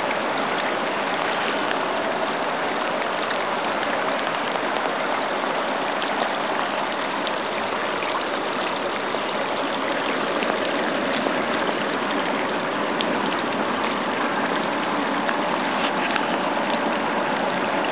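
Rain-swollen seasonal creek of muddy runoff rushing over gravel, with heavy rain falling: a steady rushing noise.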